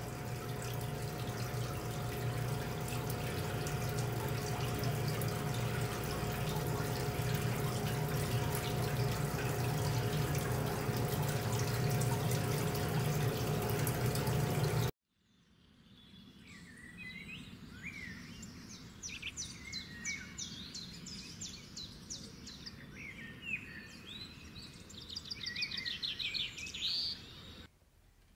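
A loud, dense rushing noise with a steady low hum that cuts off suddenly about halfway; then faint bird chirps and trills.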